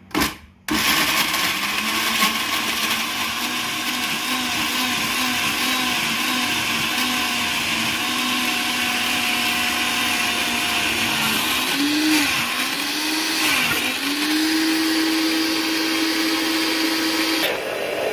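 Electric blender with a glass jar pureeing chunks of ripe mango. After a brief pulse the motor runs steadily. Its pitch dips and wavers about two-thirds of the way through, then it runs higher until it stops shortly before the end.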